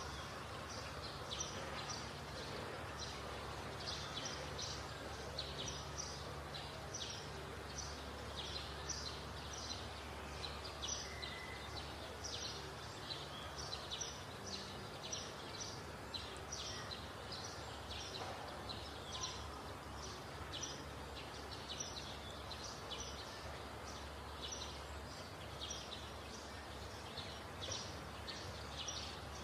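Outdoor ambience of birds chirping over and over, several chirps a second, over a steady low hum.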